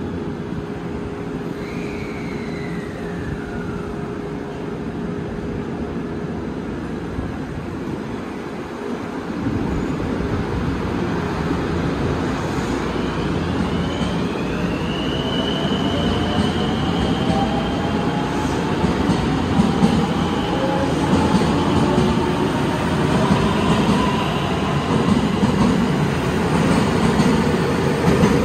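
A JR West 223 series electric train pulling out: a steady hum while it stands, then, about a third of the way in, the rumble of the train getting under way begins. Rising whines from its traction motors climb in pitch, and the noise grows louder as the cars accelerate past.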